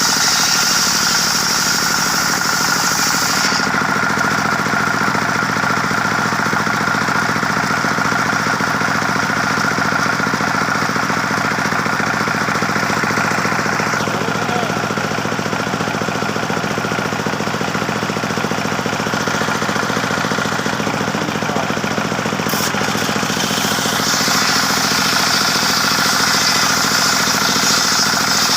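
Circular sawmill running steadily, its engine drone under a high hiss that is strong for the first few seconds, drops back through the middle and returns near the end.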